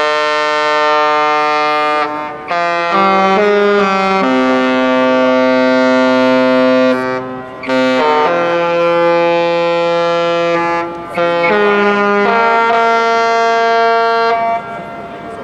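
A cruise ship's typhon horns play a slow tune in loud, held chords of several notes at once. Short breaks fall between the phrases, and the horns stop near the end.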